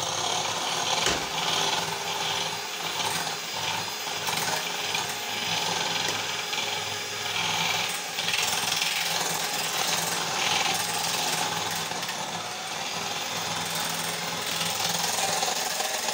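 Electric hand mixer running steadily at speed, its metal beaters whipping chilled cream in a glass bowl.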